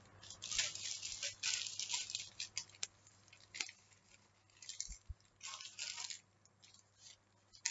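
Plastic courier mailer bag crinkling in short, irregular bursts as it is handled and cut open with scissors.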